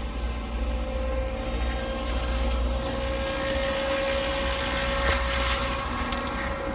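Excavator with a forestry mulcher head working: a steady low engine drone under a constant high whine from the spinning mulcher.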